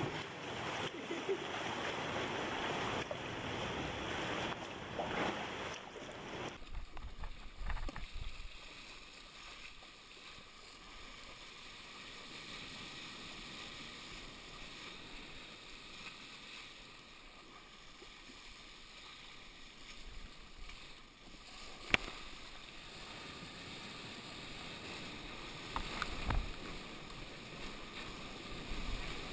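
Sea water sloshing and splashing around a sea kayak paddled close beside rock. After a cut comes a quieter, steady wash of surf and water along the kayak's hull, broken once by a single sharp click late on and by a few louder surges of water near the end.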